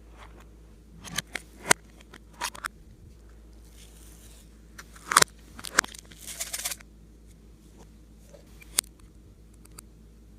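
Clay slime being handled and mixed, giving scattered sharp pops and crackles in two clusters, the loudest a little past the middle, with a single sharp click near the end.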